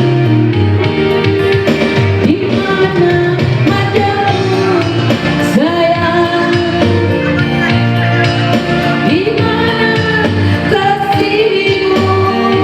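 A voice singing a melody over instrumental backing with a steady bass beat.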